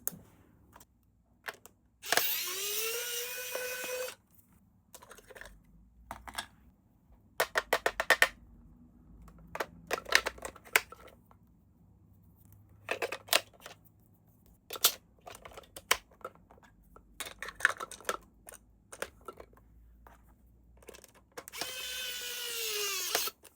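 A small electric toy motor whirs twice, about two seconds each time, spinning up in pitch and then winding down. In between come scattered clicks and knocks of the toy and its packaging being handled.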